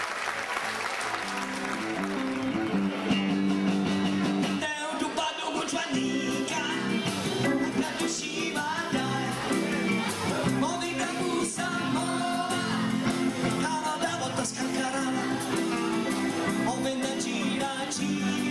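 Applause dying away, then a small band with electric guitar playing. About five seconds in, a group of young voices starts singing together over the guitar accompaniment.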